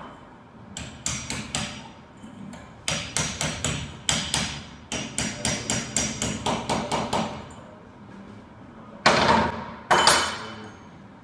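Hand hammer striking a window air-conditioner fan motor shaft clamped in a bench vise, during a bearing change: a few blows, a pause, then a run of blows at about three a second. Near the end, two louder ringing metal clanks follow about a second apart.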